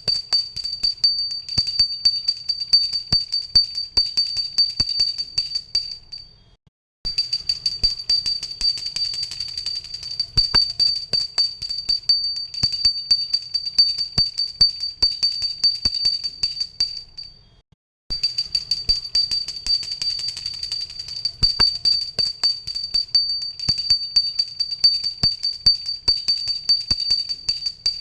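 Pooja hand bell rung rapidly and continuously, its clapper striking many times a second over a steady high ring. The ringing dies away and breaks off briefly twice, about six and seventeen seconds in, then starts again.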